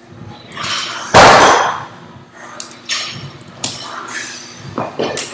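Loaded barbell, with 45-pound plates and collars, knocking and clanking as it is handled for a 295-pound front squat attempt. The loudest is one heavy knock about a second in, followed by a few lighter clicks and knocks.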